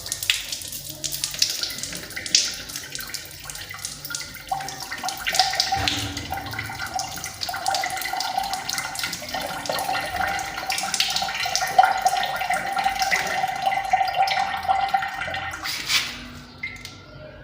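Water running from a tap into a wash basin, with a steady tone joining about four seconds in. It stops near the end.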